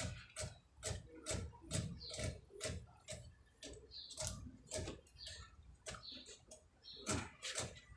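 Steady, even clicking, a little over two clicks a second.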